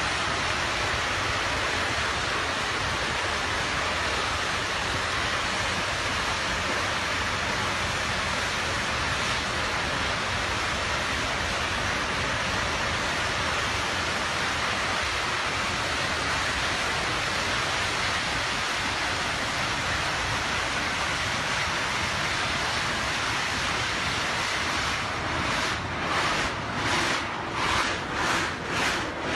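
Gas blowout burning at a land drilling rig: a steady, loud rush of gas jetting out and burning at the wellhead. In the last few seconds the noise starts to surge in a rhythm, a little under two pulses a second.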